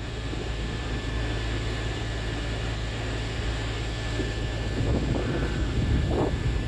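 Steady low hum of a standing Merseyrail electric train, with a faint high whine above it and a few short irregular knocks about five to six seconds in.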